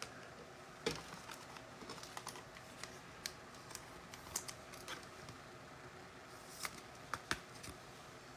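Faint, irregular small clicks and taps, a dozen or so spread out, with a few sharper ones close together near the end.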